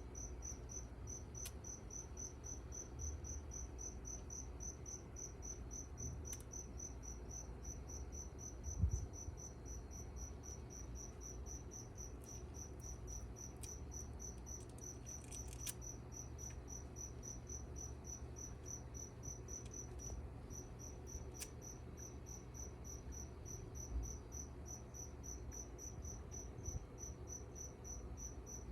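A cricket chirping in a fast, even rhythm of high chirps, breaking off briefly about twenty seconds in, over a steady low room rumble. There is a soft low thump about nine seconds in.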